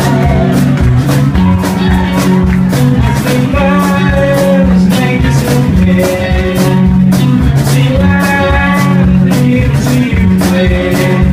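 Rock song playing, an instrumental passage led by guitar over bass and a steady drum beat.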